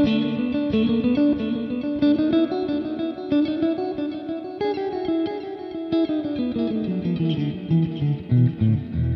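Electric guitar played through a Joyo R-14 Atmosphere reverb pedal: a run of picked single notes that climbs and then falls, each note ringing on in a reverb wash.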